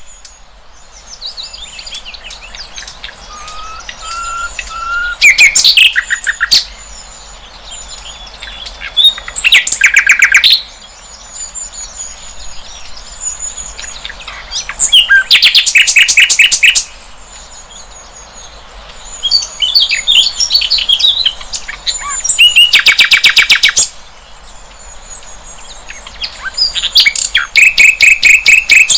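Sikatan londo, a flycatcher, singing: five loud, rapid trilled phrases, each a second or two long, every five or six seconds, with softer varied chirps and whistles between them. A faint steady high tone runs underneath.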